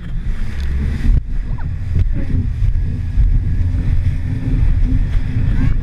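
Jet ski running at speed, with heavy wind buffeting on the microphone and water spray rushing past the hull.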